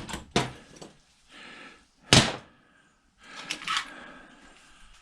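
Metal and hand tools being handled on an old microwave's steel casing: a few clicks and knocks, with one sharp knock about two seconds in, and rustling and scraping between them.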